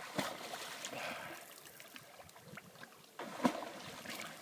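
Lake water splashing and sloshing around a swimmer moving in the water after a cannonball jump, with a sudden louder sound about three and a half seconds in.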